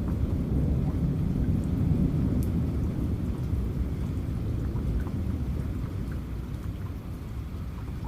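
Rain falling, with a low rumble underneath that is strongest about two seconds in and slowly fades, and scattered drips on top.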